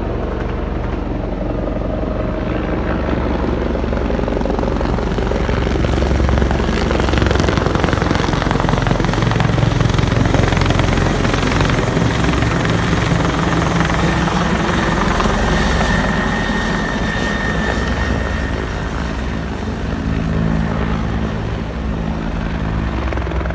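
Emergency rescue helicopter flying low overhead, its rotor blades chopping steadily; the sound grows loudest a few seconds in, then eases slightly as it moves off.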